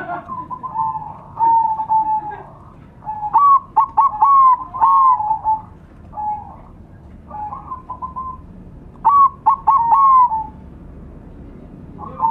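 Zebra doves (perkutut) cooing in repeated rhythmic phrases of arched notes. The loudest phrases come about three seconds in and again about nine seconds in.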